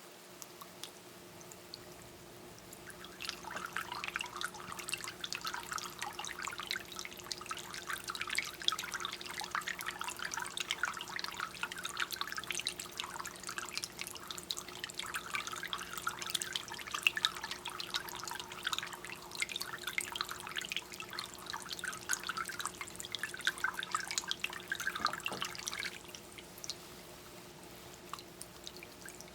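Water from a small tabletop rock fountain trickling and dripping over craggy stone into its pool, in busy irregular splashes that start about three seconds in and stop near the end. A steady low hum runs underneath.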